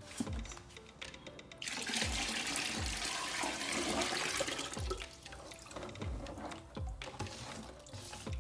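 Thick liquid açaí pulp poured from a plastic basin into a plastic bucket: a splashing pour that starts about a second and a half in and tails off about five seconds in.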